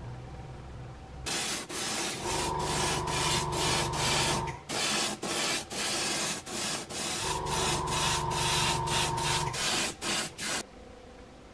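Airbrush spraying paint in repeated short bursts of hiss as the trigger is worked on and off, with an air compressor humming underneath in two stretches.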